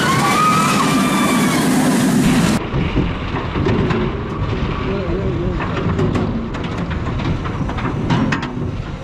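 Intamin stand-up roller coaster train running on its steel track, a steady rumble of wheels with a few rising-and-falling high tones. About two and a half seconds in it switches to an onboard sound: the train rolling out of the station towards the lift hill, an uneven low rumble with scattered clicks and people's voices.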